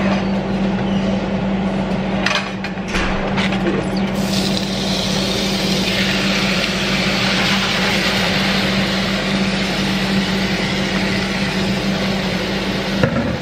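Seasoned raw ground meat sizzling as it is tipped into hot oil in a nonstick frying pan; the sizzle starts about four seconds in and grows louder around six seconds. A steady low hum runs underneath.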